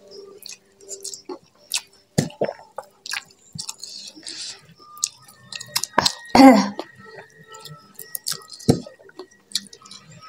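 Close-up eating sounds: chewing, wet mouth clicks and smacks, and fingers picking through rice on banana leaves, with one louder short mouth sound about six and a half seconds in.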